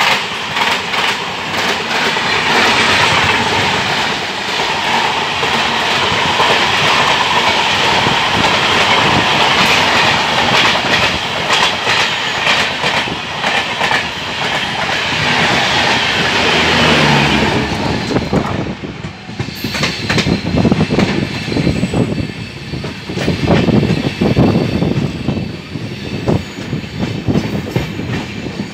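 A superfast train of LHB coaches rushing past on the adjacent track, a loud, dense roar of wheels and wind heard from the open door of a moving train. About 18 seconds in, the passing train clears, and the carrying train's own wheels are left clattering with uneven thumps over rail joints and points.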